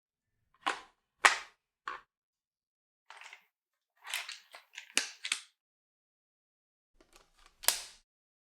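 Dyson Micro 1.5kg cordless vacuum's plastic parts clicking and snapping as they are handled and fitted together: three sharp clicks, a quick cluster of clicks in the middle, and one loud snap near the end.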